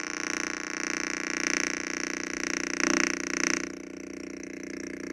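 Electronic buzzing drone from a speaker fed by a homemade transistor antenna circuit (an open ground loop): a dense chord of steady tones. It swells louder through the middle, then drops sharply to a quieter buzz a little after halfway.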